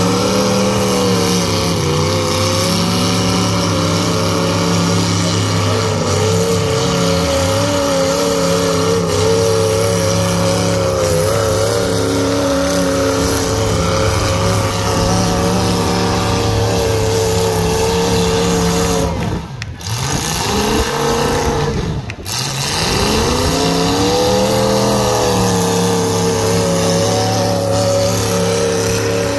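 Demolition derby car engines revving hard, their pitch rising and falling over and over as the cars accelerate around the dirt arena. The sound dips briefly twice about two-thirds of the way through.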